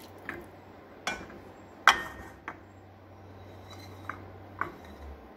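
Crockery clinking and knocking: about six short, sharp clinks, the loudest about two seconds in.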